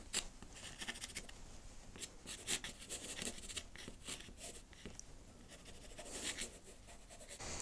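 Soft pastel stick scratching across a painted surface in faint, short, irregular strokes as marks are laid down.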